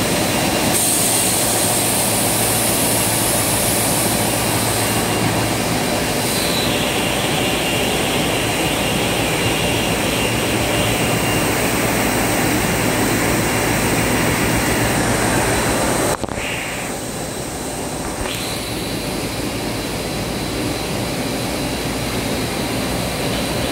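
PE extrusion coating machine for paper running: a steady, loud industrial machine noise, with a high whine that slides slowly down in pitch through the middle. About two-thirds through, the noise changes abruptly to a slightly quieter steady noise.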